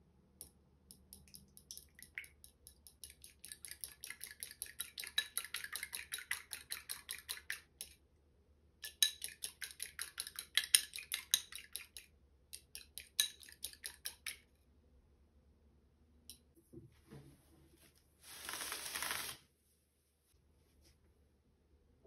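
A utensil beating rapidly against the inside of a bowl, several quick clinks a second in three runs with short pauses between. Near the end comes a short hiss lasting about a second and a half.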